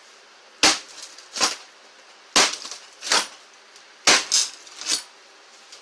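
Knife stabbed repeatedly into a cracked flat-screen TV panel: seven sharp cracking impacts, a second or less apart.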